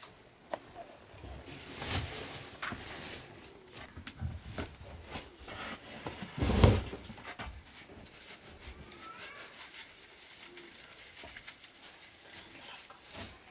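Flour being sifted by hand through a large round sieve over a basin: soft rubbing and shaking with scattered knocks of the rim, and one loud thump about six and a half seconds in.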